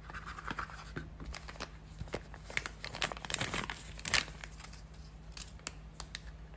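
Thin plastic sleeve crinkling and rustling as a folding knife is handled and slid out of it, with scattered small clicks, busiest around three to four seconds in.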